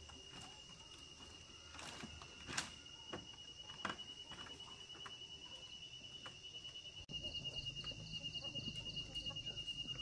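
An insect's steady, high, pulsing trill, with a few sharp knocks in the first few seconds; the background becomes abruptly louder about seven seconds in.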